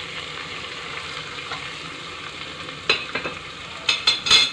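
Sliced onions frying in oil in an aluminium pressure cooker, a steady sizzle. About three seconds in, and again in a louder cluster near the end, a metal ladle knocks and scrapes against the pot as stirring starts.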